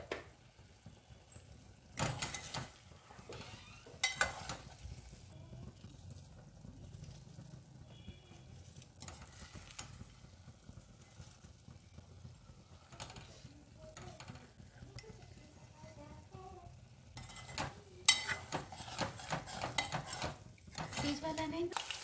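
A metal ladle stirring quail pieces and onions frying in an aluminium pot, with faint sizzling. The ladle knocks against the pot about 2 and 4 seconds in, and there is a busier stretch of scraping and clinking near the end.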